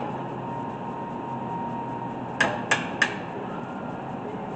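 Three quick hammer blows, about a third of a second apart, roughly two and a half seconds in, during work on the brakes of a car that has sat for a while.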